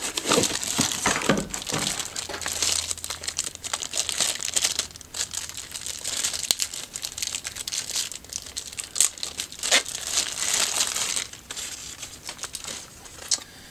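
Plastic bag and cardboard packaging crinkling and rustling in irregular, crackly handling noise as a cordless drill battery is unpacked from its box.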